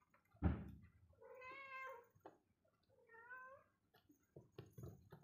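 A cat meowing twice, each call just under a second long, after a low thump about half a second in; a few light taps follow near the end.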